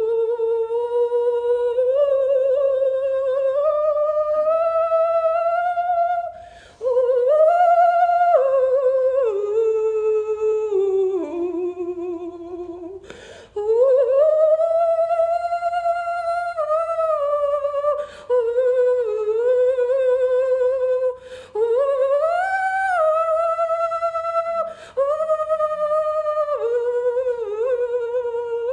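A woman's wordless humming in long, held notes that glide slowly up and down in pitch, with short breaks for breath every few seconds.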